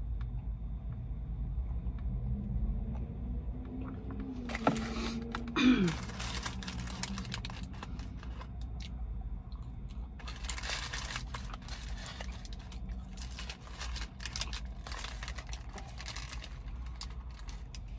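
A paper burger wrapper crinkling and rustling in the hands. There is a short burst about four to six seconds in, then longer, busier crinkling from about ten to sixteen seconds. Under it is a low steady rumble from outside coming through open car windows.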